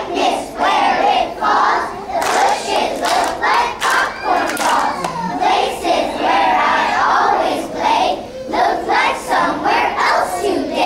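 A group of young children's voices performing together in unison, continuous and loud.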